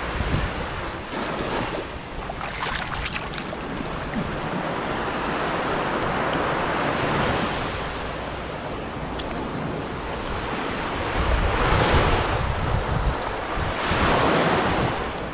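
Sea waves washing onto a beach, the surf swelling and fading, with wind buffeting the microphone; the surf surges loudest about eleven and fourteen seconds in.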